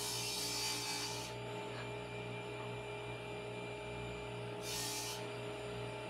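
Wooden crosscut sled sliding along the table saw top, twice giving a short hiss of wood rubbing: once at the start, lasting about a second and a half, and again briefly about five seconds in. A steady low hum runs underneath.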